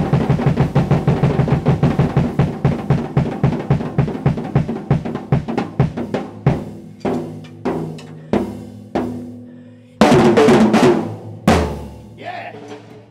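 Drum kit played with the hands: a fast, even stream of strokes that thins out to slower, spaced hits. A loud flurry of hits comes about ten seconds in, then one last hit rings down.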